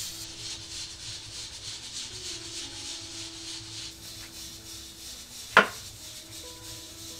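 Knife blade scraping the skin off a white root vegetable on a wooden cutting board, a rhythmic rasping that thins after about four seconds. One sharp knock sounds about five and a half seconds in.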